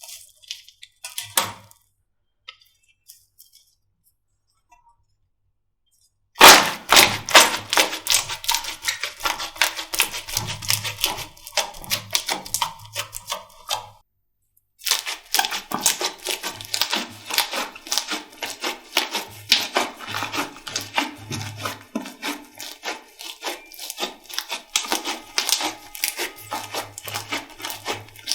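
Slime being squished and pressed by hand, making dense, rapid crackling and clicking as trapped air pops. After a few quiet seconds with only scattered clicks, the crackling starts abruptly about six seconds in and pauses briefly near the middle.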